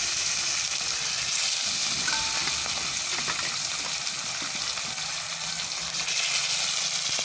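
Pieces of fish sizzling steadily as they fry in hot oil in an iron karahi.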